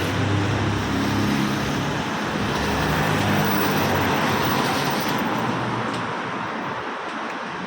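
A motor vehicle's engine humming under a steady rushing hiss of rain and wet road noise; the engine's low hum fades about six seconds in while the hiss goes on.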